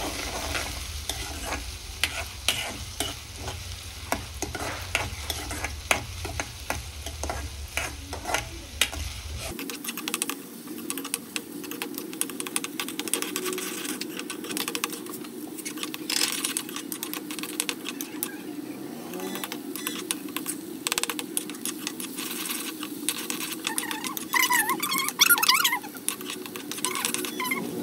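Chopped onion and cumin frying in hot oil in a pan: a steady sizzle, with a spoon stirring and scraping against the pan in many quick clicks. There is a louder stretch of scraping a few seconds before the end.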